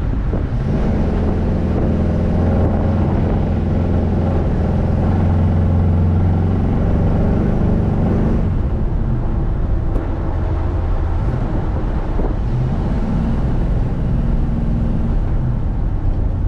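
Chevrolet El Camino running steadily while cruising at low speed on fresh rear-end gears and axles, during the light street driving used to break the new gears in. The engine note drops back about eight and a half seconds in, then builds again a few seconds later.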